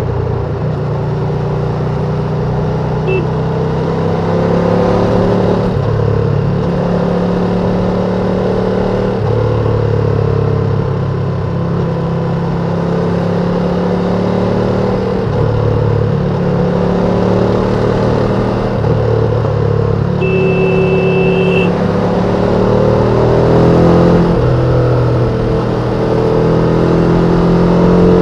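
Ducati Panigale V2's V-twin engine on stock exhaust running under way, its revs stepping up and down every few seconds as it works through the gears. A short steady beep sounds about twenty seconds in.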